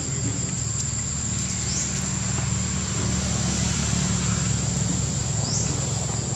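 Steady high-pitched insect drone from crickets, over a low steady mechanical hum like an idling engine, with two short high chirps about two seconds and five and a half seconds in.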